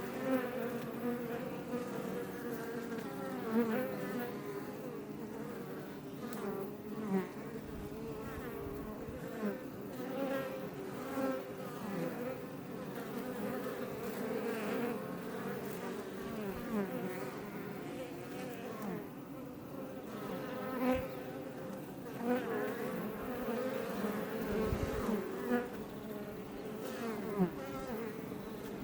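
Honey bees (Iberian honey bee, Apis mellifera iberica) buzzing in numbers at the entrance of a Langstroth hive: a steady drone of many wingbeats, with individual bees passing close to the microphone every few seconds, their buzz briefly louder and sliding in pitch.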